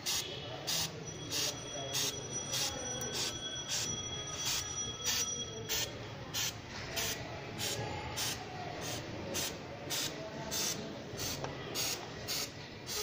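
Aerosol chain lube sprayed onto a motorcycle chain in short hissing bursts, about two a second, over a steady whir with a faint squeal from the chain and rear wheel turning on the stand.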